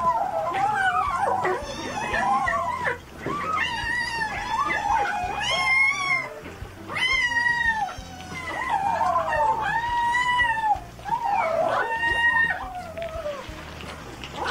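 A litter of kittens mewing over and over: short cries that rise and fall in pitch, one after another and sometimes overlapping.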